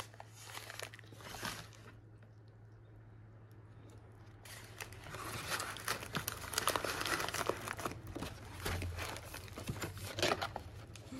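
Paper and plastic wrapping rustling and crinkling as hands handle a paperboard gift box and the paper-wrapped items inside it. The sound drops to a lull about two seconds in, then comes back louder and busier at about four and a half seconds.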